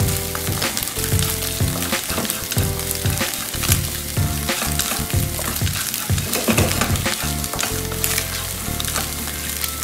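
Scrambled egg sizzling in a frying pan while a wooden spatula stirs and scrapes through it, with frequent light taps of the spatula against the pan.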